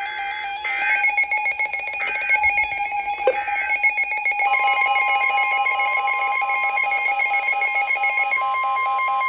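Several NOAA weather radio receivers alerting at once, their alarms beeping in fast pulses. Near the start come three short data bursts, typical of the SAME alert header. About four and a half seconds in, the broadcast's steady warning alarm tone begins.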